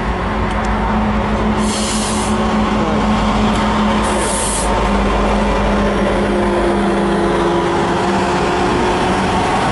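Canadian National freight train rolling past close by: a steady diesel-locomotive drone over continuous rail and wheel noise, with two short high hisses about two and four seconds in.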